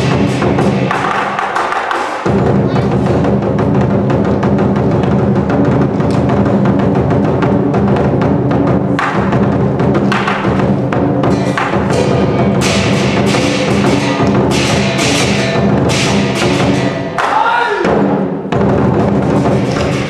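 Chinese lion dance percussion: a large drum beaten in a fast, driving rhythm with cymbal crashes and gong, with a brief drop-off about two seconds before the end.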